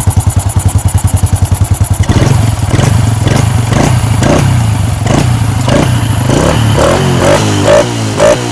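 Honda Wave 110i's single-cylinder four-stroke engine running on a newly fitted 28 mm throttle body, air screw not yet adjusted. It pulses evenly until about two seconds in, then the note changes and it runs faster, with a regular knock repeating a few times a second.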